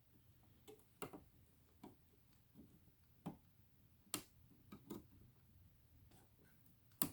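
A few faint, sharp clicks at irregular intervals, the strongest about three and four seconds in, from hand snips cutting the nickel connecting strips on a battery pack.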